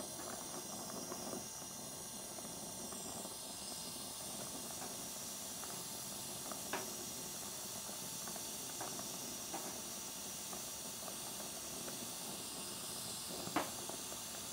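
Hand torch flame hissing steadily as it heats a copper tube joint on a refrigeration condensing unit's panel, with a couple of small ticks about seven seconds in and near the end.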